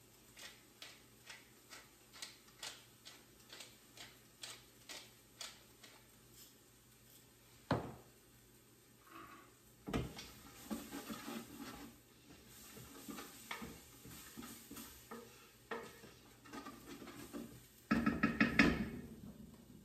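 Hand-twisted seasoning grinder clicking over a pot, about two clicks a second for the first six seconds. Then a knock, and a spoon stirring and scraping in a stainless steel stockpot, with a louder clatter of the pot near the end.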